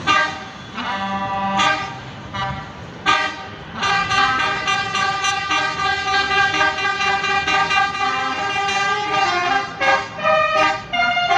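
Bus telolet horn, a multi-trumpet musical air horn, sounding several notes together. It gives a few short blasts over the first four seconds, then a long run of held notes that changes pitch several times near the end. Very shrill and loud.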